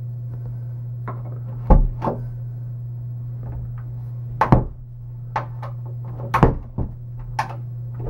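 Old Dexter mortise door latch clicking and clunking as a glass doorknob is turned and the door worked, about eight sharp clicks spread through, over a steady low hum.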